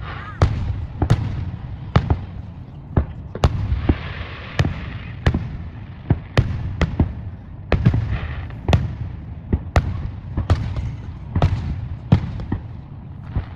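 Fireworks display going off: a quick, irregular run of sharp bangs, about two a second, over a continuous low rumble.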